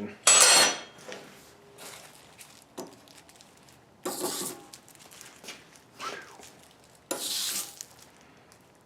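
Beeswax hissing on hot forged steel in three short bursts as it is rubbed on to finish the metal, with faint clicks of metal being handled in between.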